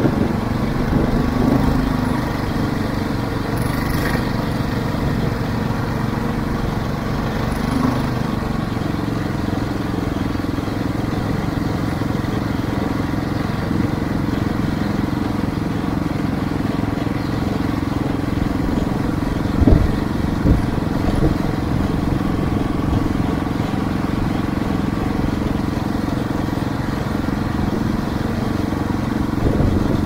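Engine of a motorcycle-type all-terrain vehicle (Kirov SR-21 motovezdekhod) running steadily under way, with two or three short knocks a little past the middle.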